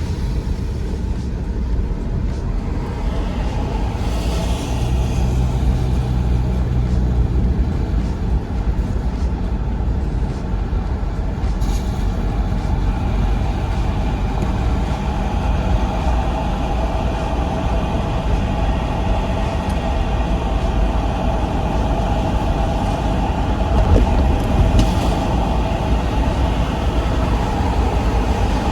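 Steady road and engine noise heard inside a moving car's cabin: a continuous low rumble with tyre hum, and brief swells of hiss a few times.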